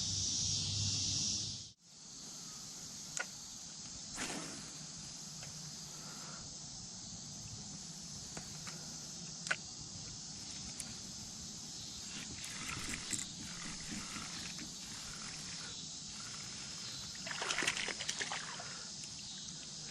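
Outdoor riverside ambience: a steady high insect chirr and water sloshing, with scattered small clicks. There is a louder burst of splashing and rustle about 17 seconds in, typical of a small fish being landed.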